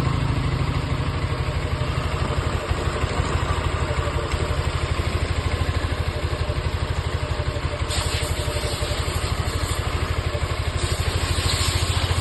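Yamaha NMAX scooter's single-cylinder engine idling with an even, steady pulse, running smooth after its worn, loose rocker arm rollers were replaced with genuine parts. A light hiss rises about eight seconds in.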